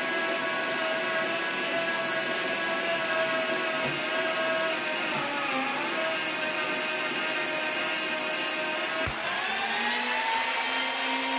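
Magnetic drill's motor whining steadily under load as an annular cutter bores through 1-inch mild steel, the pitch sagging briefly about halfway. About nine seconds in there is a sharp click, and then the motor speeds up as the cutter comes free of the cut.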